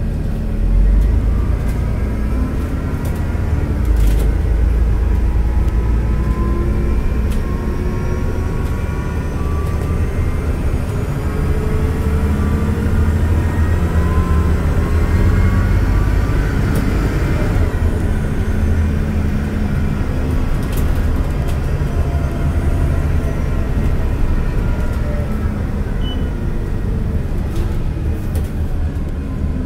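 Mercedes-Benz OC500LE CNG bus on the move: a steady low drone from its compressed-natural-gas drivetrain, with several whining tones that rise and fall again and again as it speeds up and slows. A few faint clicks sound now and then.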